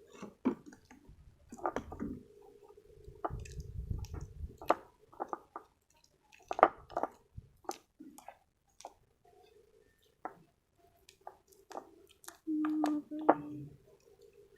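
Glue-and-dish-soap slime being mixed with activator, giving wet, sticky squelches and clicks at irregular intervals as it begins to clump. A short, steady low hum stands out near the end.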